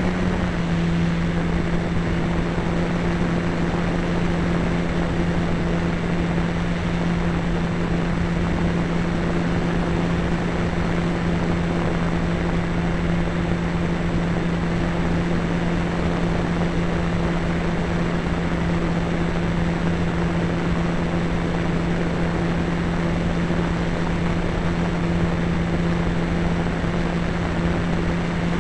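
The motor and propeller of a radio-controlled model Cessna, heard from the plane's onboard camera, run as a steady droning tone under a constant rush of air noise. The pitch drops slightly about half a second in and then holds.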